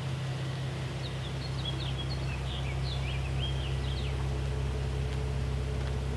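Car engine idling steadily, a low even hum. A bird chirps a quick series of short calls over it between about one and three and a half seconds in.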